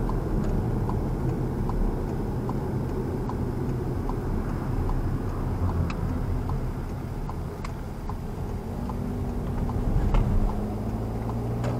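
Car engine and road noise heard from inside the cabin while driving, with a turn-signal indicator ticking about twice a second through the first half. Near the end the engine note rises as the car speeds up.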